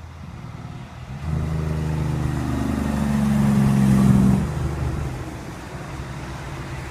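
Kenworth prime mover's diesel engine running as the truck and its trailers drive past. It builds from about a second in to its loudest around four seconds, then fades.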